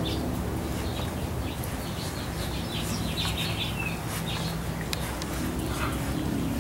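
Yellow Labrador retriever puppies at play: short high squeaks and whines, one falling, with scattered light clicks, over a steady low hum.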